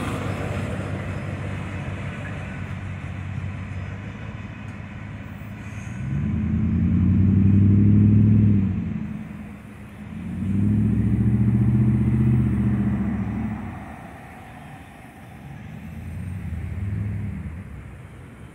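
Rumble of a freight train's autorack cars rolling away, fading over the first few seconds. Then three separate swells of a low droning engine, each rising and dying away, like motor vehicles passing close by.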